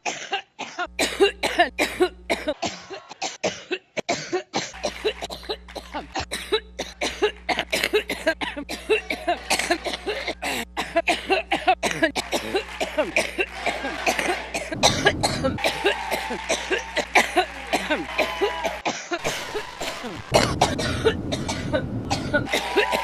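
A woman coughing over and over in a long fit of short, rapid coughs, several a second.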